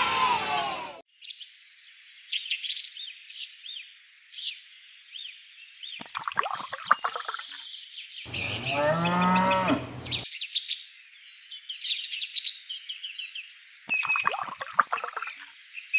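Farmyard sound effects: small birds chirping throughout, and a cow mooing once for about two seconds, around eight seconds in. A cheering crowd cuts off about a second in.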